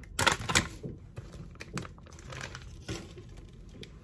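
Plastic snack packaging crinkling and rustling as it is handled, with sharp crackles about half a second in, then lighter, irregular crinkles that die down near the end.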